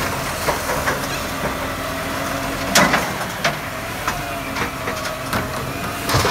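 Volvo side-loader garbage truck running with a steady whine while its automated arm lifts a wheelie bin, tips it into the body and lowers it again. Knocks come throughout, with a loud clatter just under three seconds in as the bin is tipped.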